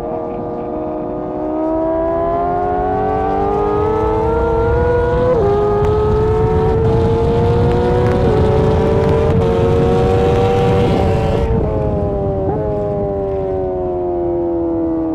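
Honda CBR1000RR-R Fireblade inline-four engine at full throttle, accelerating hard with two quick upshifts where the pitch drops sharply. About eleven seconds in the throttle shuts, the engine blips up through two downshifts, and it slows with falling revs.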